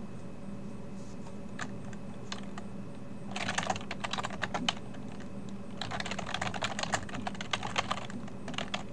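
Typing on a computer keyboard: two runs of quick keystrokes, one starting about three seconds in and a longer one from about six seconds on, with a few single clicks before them. A low steady hum runs underneath.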